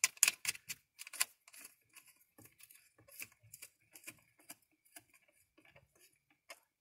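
Small metal clicks and ticks of a hex nut being spun down by hand onto a lead-acid battery's terminal stud, clamping a wire's ring terminal. A quick run of sharp clicks in the first second or so, then scattered lighter ticks.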